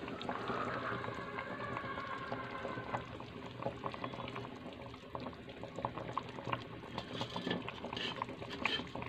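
Chicken and potato curry simmering at a boil in a metal pot, a steady run of small bubbles popping.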